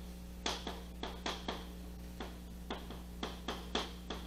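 Chalk on a blackboard as a curve is drawn: about a dozen short taps and scrapes, irregular at roughly three a second, over a steady low hum.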